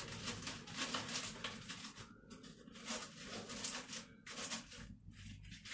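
Hands working in potting soil and spreading out bare tree roots: irregular soft rustling and gritty scraping.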